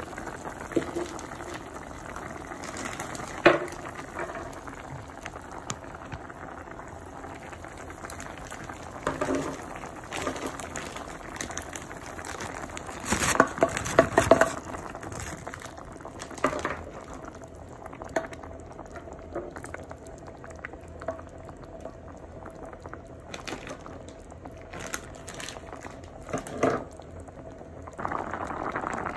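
Pork spareribs boiling in sinigang broth in a pot: steady bubbling with irregular louder pops, the busiest cluster about halfway through.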